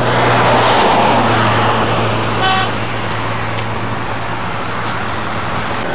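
Loud, steady rushing noise with a low hum running under it, and one short horn toot about two and a half seconds in.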